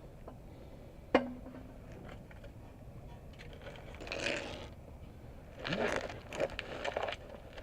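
Hand work with tools and metal parts: a sharp metallic clink about a second in that rings briefly, then a burst of scraping, and a run of clicks and scrapes near the end.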